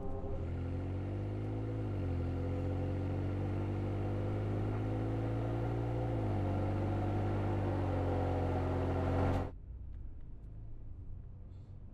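Ford F-150's 3.5L twin-turbo EcoBoost V6 with a Corsa 3-inch sport exhaust accelerating hard. The pitch climbs and drops back at upshifts about 2 and 6 seconds in. About 9.5 seconds in the sound cuts off abruptly, and a much quieter low engine hum follows.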